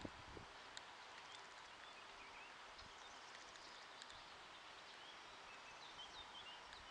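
Near silence: faint outdoor ambience with scattered short bird chirps and a soft bump at the very start.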